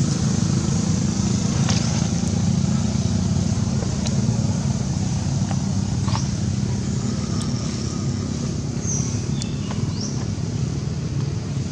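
Steady low rumble, like a vehicle or traffic, with a few brief high chirps scattered through it.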